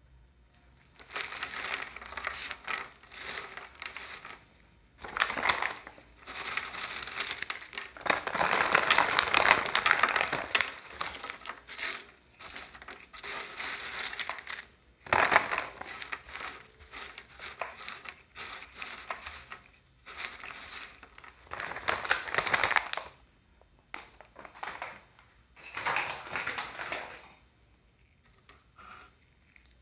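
Cheetos being crushed in gloved hands and pressed against the steel pan of an ice cream roll machine: dry crunching in repeated bouts of one to three seconds with short pauses between, stopping a couple of seconds before the end.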